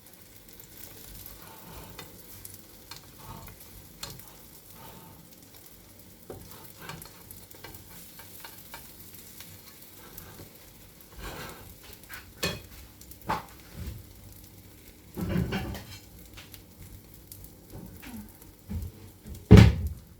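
An egg omelette frying gently in a pan over very low heat, a faint sizzle, with a cooking utensil now and then knocking and scraping against the pan. The loudest knock comes near the end.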